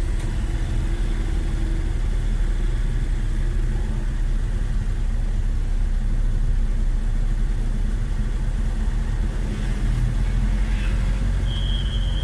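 Vehicle engine running steadily with a low rumble. A high, steady beep starts near the end.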